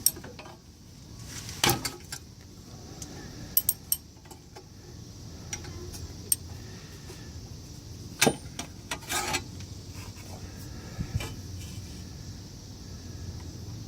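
Irregular sharp metallic clinks and clicks of a socket and ratchet being worked on the transmission's reverse light switch, some in quick little clusters, over a steady low rumble.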